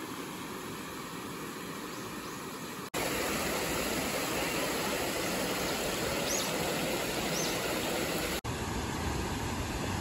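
Steady rush of stream water pouring between stone stepping stones and over a low stone weir, louder after a cut about three seconds in. Two faint high chirps come in the middle.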